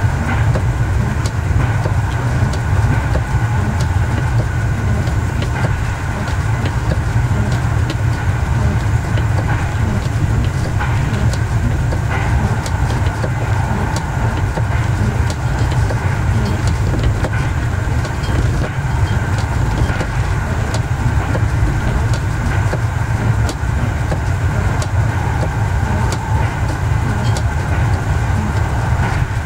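Swedish Y1 railcar, rebuilt with Volvo bus diesel engines, running at a steady speed and heard from the driver's cab. Its engine makes a steady low drone over the noise of the wheels on the rails.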